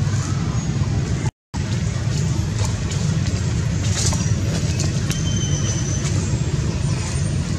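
Steady low rumble of background noise, cut off briefly about a second and a half in.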